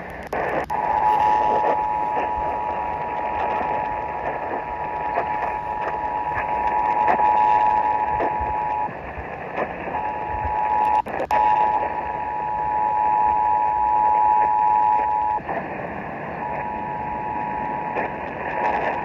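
Emergency Alert System two-tone attention signal, a steady dual tone of 853 and 960 Hz, received off the air through heavy radio static. It cuts out twice for about a second, at about 9 and about 15 seconds in.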